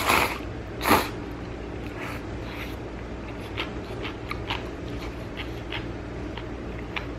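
A person slurping up chewy instant noodles in two loud slurps in the first second, then chewing with soft, wet mouth clicks.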